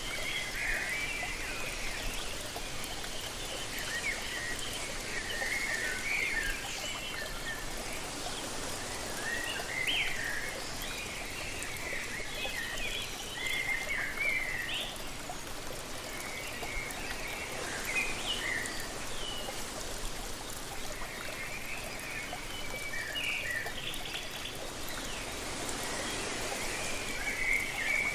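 Steady rush of falling water from a waterfall, with small birds chirping and trilling in short phrases again and again over it.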